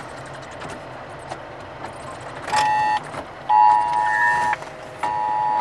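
Steady low vehicle cabin noise, then from about halfway through a repeating electronic beeping tone, three beeps of about half a second to a second each.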